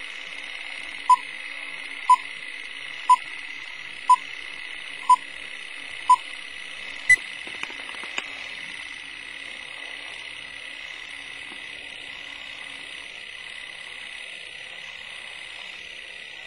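Old-film countdown leader sound effect: six short beeps, one a second, followed by a sharper pop about seven seconds in. Under them runs a steady hiss of old film noise with a few faint clicks.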